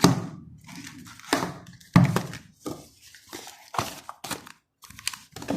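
A phone box and its packaging being handled and set down on a table: a series of soft thunks and knocks, about half a dozen, with brief rustling between them.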